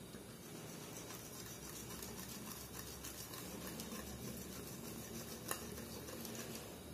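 Faint rustle of wheat flour being poured from a stainless steel bowl into a dish of batter, with one light tap of the bowl about five and a half seconds in.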